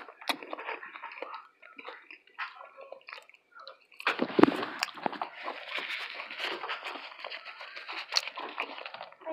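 Close-miked eating sounds from a taco being eaten: a few small wet mouth clicks at first, then from about four seconds in a denser, continuous wet chewing and squelching.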